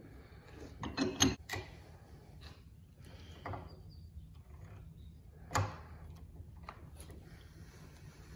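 A few separate metal clanks and clicks: a cast-iron oil rail being clamped in a bench vise, then a ratchet and socket set onto one of its oil cups. The sharpest cluster comes about a second in, with single knocks later.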